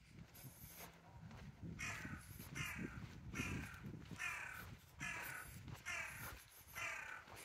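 A crow cawing: about seven calls in a row, a little under a second apart, starting about two seconds in.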